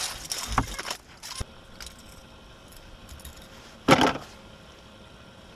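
A bass just swung aboard, flopping and being handled on the boat's carpeted deck: a few knocks and clatters in the first second or so, and a louder scuffle about four seconds in.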